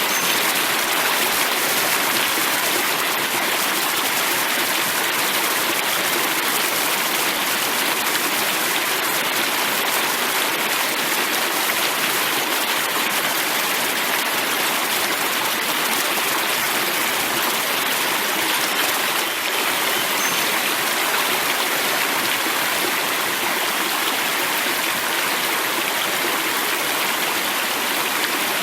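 River water flowing steadily over rocks, a constant rushing and burbling with no breaks.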